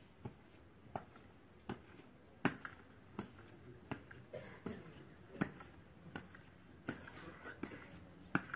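Faint, evenly spaced thuds, about three every two seconds, keeping a steady beat, with faint voices between them.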